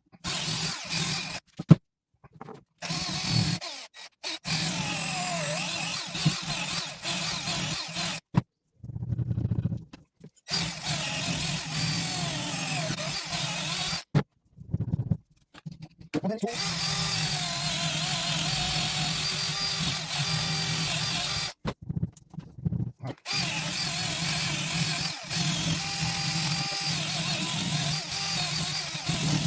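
DeWalt grinder running against a steel sledgehammer head, cleaning the rust and old finish off it: a steady grinding sound in several long stretches, each cut off suddenly by short breaks.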